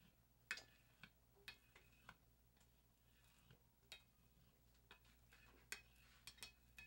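Blade scraping softened PVA coating off a CRT's glass face: faint, irregular clicks and short scrapes, about a dozen strokes.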